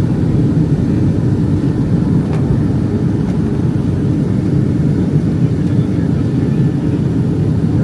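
Steady low roar of cabin noise inside a Boeing 757-232 in flight: engine and airflow noise heard from a passenger seat.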